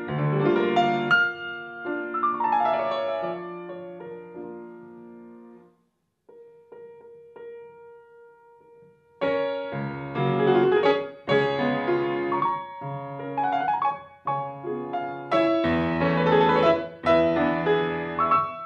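Grand piano played solo: a passage that dies away almost to silence about six seconds in, a few soft single notes, then loud full chords and runs from about nine seconds in.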